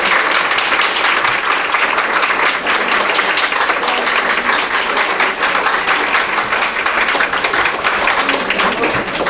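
Audience applauding steadily: many hands clapping together at the close of a talk.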